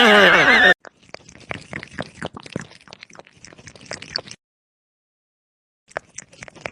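A loud, wavering animal call that cuts off abruptly under a second in, followed by a run of quick, soft wet clicks and smacks like an animal eating or lapping.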